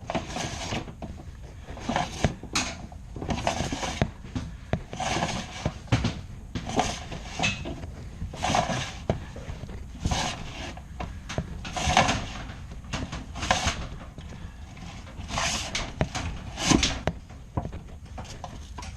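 Dryer vent cleaning brush on its rods scraping and knocking inside the vent duct in irregular bursts, roughly one or two a second, over a low rumble.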